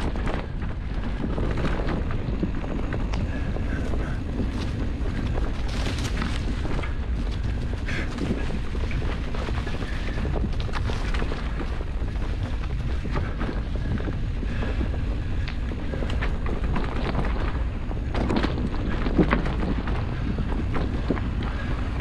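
Wind buffeting the microphone over the steady rumble of mountain bike tyres rolling down a dirt trail. The bike rattles and knocks over bumps, with a sharper knock near the end.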